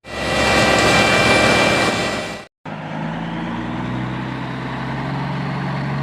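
Heavy construction machinery running, in two cut-together clips: a loud, noisy machine sound that stops abruptly about two and a half seconds in, then a steady engine hum.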